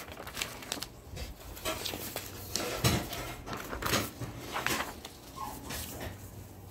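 Sheets of paper being handled and laid flat on a wooden tabletop: rustling and a few soft knocks, the strongest about three and four seconds in.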